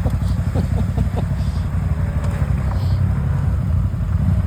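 1000 cc ATV engine running steadily under way, a deep, even rumble.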